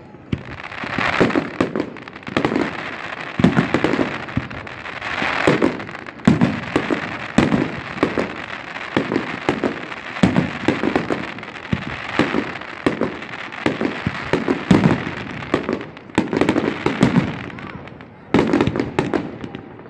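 Fireworks display: a steady string of aerial shells bursting with sharp bangs, often several within a second, over a continuous crackle and hiss of burning stars.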